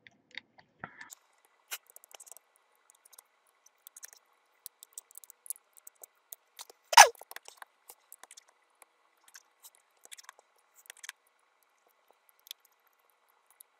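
Small hand tools clicking and scraping on the parts of an opened iPhone 6s as it is dismantled: scattered light ticks and taps, with one louder, sharper click about seven seconds in.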